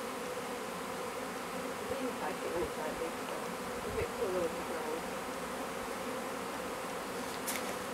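A swarm of honey bees buzzing in the air around opened hives, a steady hum with single bees rising and falling in pitch as they fly close past. There is a brief thud about four seconds in and a short click near the end.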